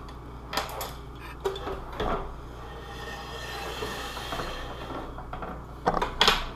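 A few sharp clicks and clattering knocks of a clamp and shims being handled and set on a glued armour piece.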